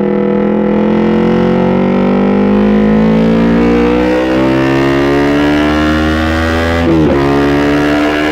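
2017 Honda CBR250RR's parallel-twin engine through a loud Proliner TR-1 Short full-system exhaust, pulling hard with a steadily rising note. About seven seconds in it shifts up a gear: the note drops and then starts climbing again.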